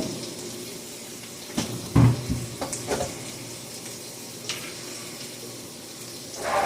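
Burgers frying on a steel griddle, a steady sizzle, with a few short knocks and clatters of utensils, the loudest about two seconds in.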